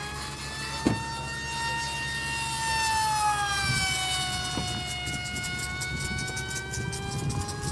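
Zoom 370 brushless electric motor and propeller of a Scythe RC flying wing whining in high-speed flight, the pitch sliding up, then dropping as it passes, then climbing again. A single sharp knock close to the microphone about a second in.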